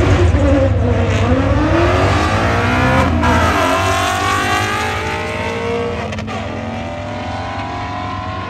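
Two drag cars launching off the line and accelerating hard down the strip. Their engine note rises, dips at a gear change about three seconds in and again about six seconds in, and grows fainter as the cars pull away.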